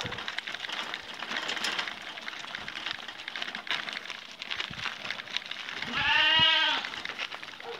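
Anglo-Nubian goat giving one long, wavering bleat about six seconds in, over steady crunching steps on a gravel road.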